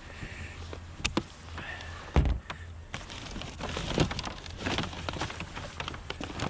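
Clicks and clattering knocks of scrap being worked apart by hand, with one heavy thump about two seconds in and a busier run of clicks and knocks in the second half, over a steady low hum.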